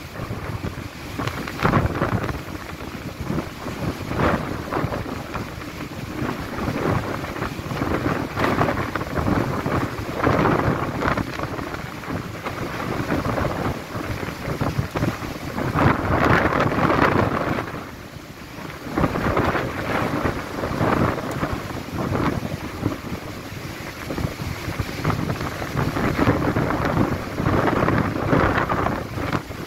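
Gale-force wind buffeting the microphone: a loud, rumbling rush that swells and eases in uneven gusts.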